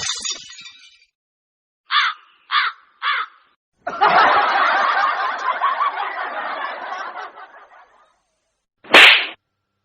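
A run of comedy sound effects: three quick descending chirps, then about four seconds of laughter, then one short sharp high blip near the end.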